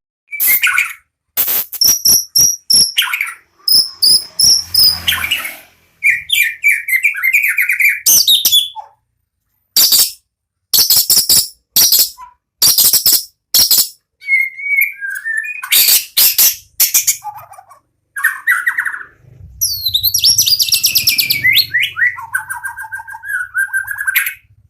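White-rumped shama (murai batu) singing in full voice: a fast, varied string of sharp clicking notes and whistled phrases, broken by short pauses.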